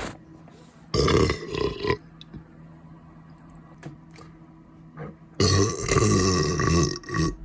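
A person burping: one burp about a second in, a longer drawn-out burp midway through, and a short one right after it near the end.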